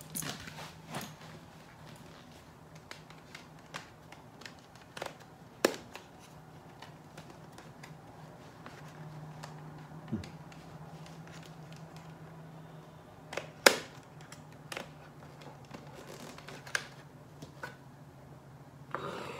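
Scattered clicks and knocks from hands handling an Arai full-face motorcycle helmet, fingers working at the visor mechanism, which won't release. The two sharpest clicks come about six and fourteen seconds in, over a faint steady low hum.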